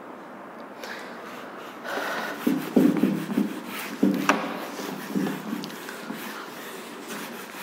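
Whiteboard duster rubbing back and forth across a whiteboard, wiping off marker writing in a run of uneven strokes that start about a second in.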